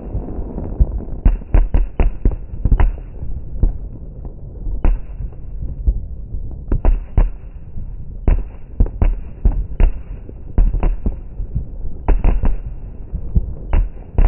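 Many aerial fireworks bursting, sharp bangs coming irregularly and often several in quick succession, over a steady low rumble.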